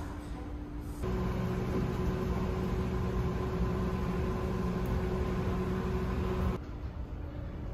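Microwave oven running with a steady hum, starting abruptly about a second in and cutting off near the end, over the low rumble of the ferry's engines.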